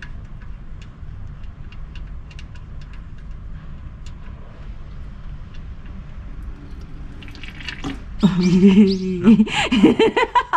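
Engine oil draining from a Nissan Serena C27's sump as the drain plug is unscrewed by hand: light dripping at first, then the oil starts to pour into the drain pan about seven seconds in. Voices exclaim and laugh near the end.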